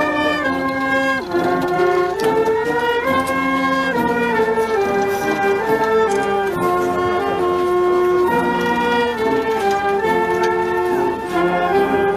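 Slow brass music played in long held notes that move step by step from one pitch to the next, in the manner of a solemn band piece.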